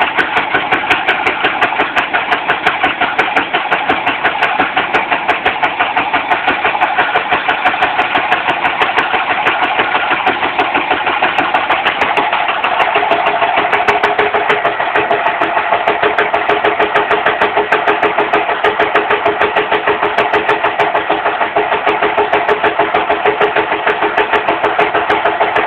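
Indesit washing machine running with a rapid, steady, rhythmic knocking from inside the machine, several knocks a second.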